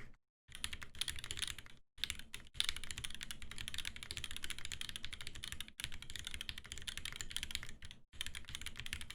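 Fast typing on an Aeboards Constellation 65 mechanical keyboard: a top-mount build with a brass plate and Durock linear switches, lubed with 205g0 and filmed. A dense, continuous run of keystrokes with a few brief pauses.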